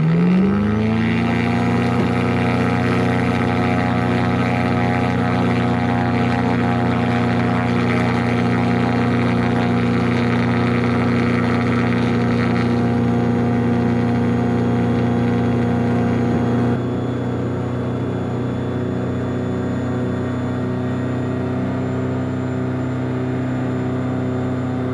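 ASG 32 Mi self-launching glider's two-stroke engine and pylon-mounted propeller, heard from the cockpit. It rises in pitch to full takeoff power right at the start, then runs at a steady, even pitch through the takeoff roll. It gets a little quieter about 17 seconds in.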